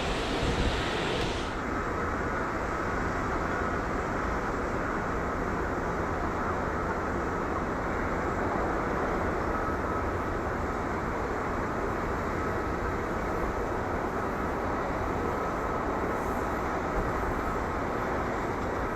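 Boeing 737-800 jet engines coming in to land, a steady spread of engine noise with a faint thin whine held throughout. A brighter hiss cuts off abruptly about a second and a half in.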